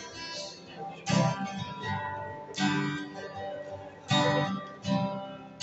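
Acoustic guitar strumming chords in the instrumental gap between sung verses, with a strong strum about every second and a half and the notes ringing on between strums.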